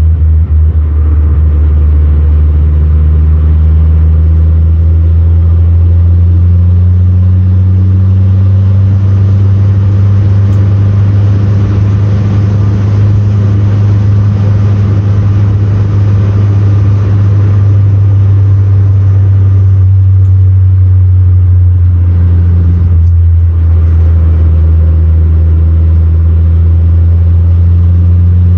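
Inside the cabin of a 1970 Renault 16 TS at cruising speed: its four-cylinder engine runs under a steady, loud low drone. The engine note rises a little and eases a few times.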